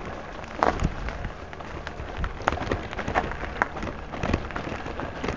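Mountain bike riding a dry, leaf-covered forest trail, heard from a camera mounted on the rider or bike. The tyres crackle steadily over leaves and twigs, and the bike gives sharp knocks and rattles over bumps, the loudest about a second in and several more in the middle.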